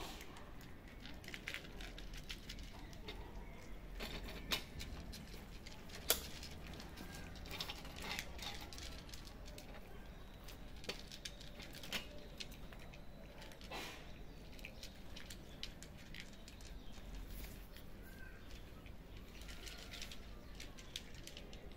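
Cats crunching dry kibble: an irregular run of crisp clicks and crackles, with a couple of louder crunches a few seconds in.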